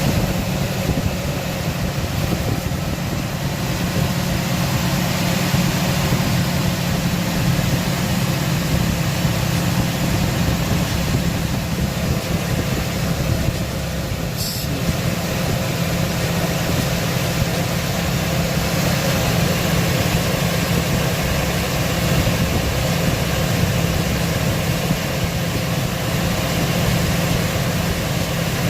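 2004 Ford F-250 pickup's engine idling steadily, run after a transmission cooler line replacement so the new line can be checked for leaks. One brief click about halfway through.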